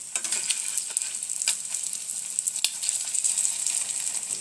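Egg-coated bread slices sizzling and crackling in hot oil in a frying pan, with a steady hiss and a few sharp clicks.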